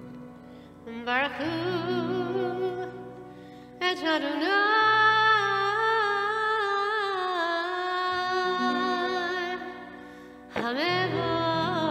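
A woman singing a slow melody in long held notes with wide vibrato, over steady instrumental accompaniment; new phrases begin about a second in, about four seconds in, and near the end after a brief lull.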